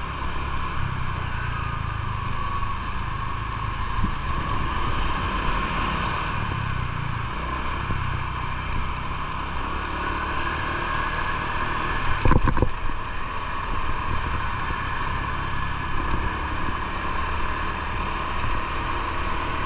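Honda scooter running at riding speed through town, its engine hum mixed with steady wind rush on the microphone. A brief thump about twelve seconds in.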